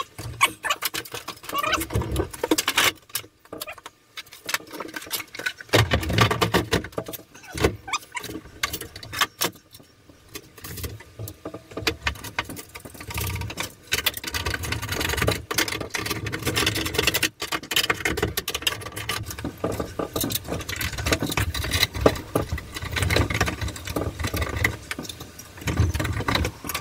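Irregular clicks, clinks and knocks of hand tools, hardware and wiring being handled as a soft starter's wire harness and line and load connections are tightened down.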